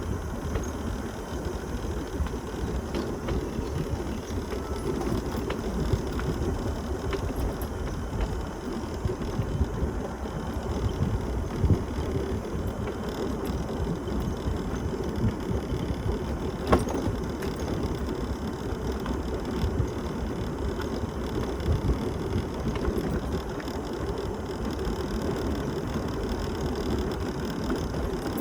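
Mobility scooter rattling as it drives over an uneven road, with a couple of sharper knocks from bumps.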